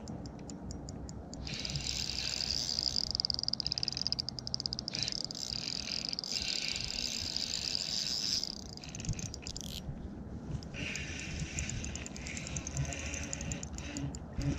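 Spinning reel being cranked to retrieve line, a fast whirring tick from its gears. It runs from about a second and a half in to about eight and a half seconds, then starts again at about eleven seconds.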